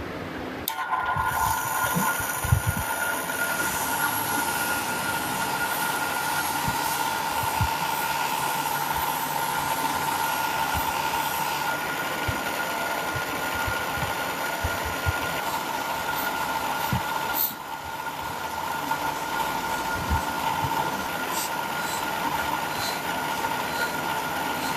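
A power tool running steadily with a whine over a hiss, broken by scattered light knocks and a brief drop about two-thirds of the way through.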